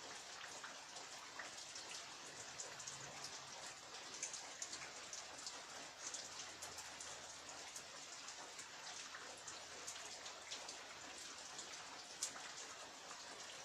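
Heavy rain falling steadily, a constant hiss with many sharp drop ticks and splats striking surfaces.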